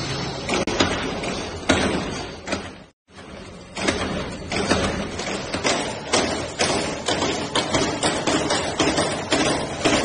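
Mechanical punch presses running in a workshop, stamping stainless-steel watch-band parts: a steady machine din with repeated sharp impacts, about two a second after a brief dropout about three seconds in.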